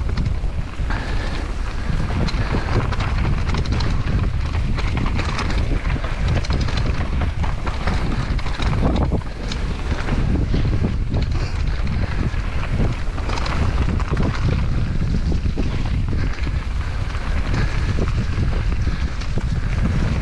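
Wind buffeting a helmet-mounted action camera's microphone on a fast downhill mountain-bike descent, over the steady rush of tyres rolling on dirt and dry leaves, with frequent small rattles and knocks from the bike.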